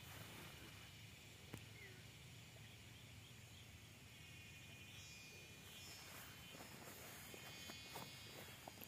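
Quiet field ambience with faint high-pitched insect chirring that becomes stronger from about five seconds in, and a few soft clicks.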